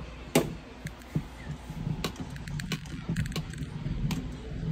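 Metal spoon stirring thick hominy corn porridge in a stainless steel Instant Pot inner pot, knocking and scraping against the pot in irregular clicks.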